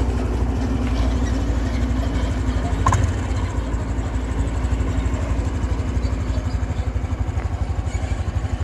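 An engine idling with a steady, even low putter that grows more distinct in the second half. A short click comes about three seconds in.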